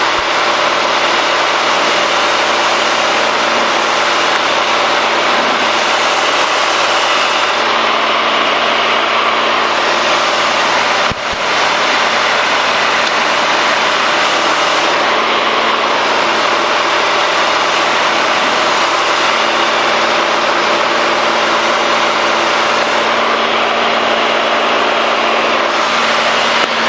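Cabin drone of a Cessna 210D in flight, its six-cylinder Continental engine and propeller running steadily on the landing approach. A short click and brief dip in level come about eleven seconds in.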